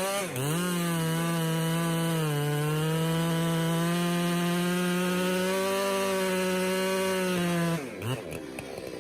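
Chainsaw cutting into a large tree trunk, its engine held at a steady high speed under load. The pitch dips briefly twice at the start, and the saw drops away about eight seconds in.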